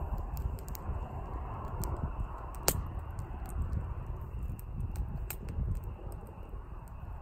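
Wood campfire crackling, with scattered small pops over a low steady rumble and one loud sharp pop about two and a half seconds in.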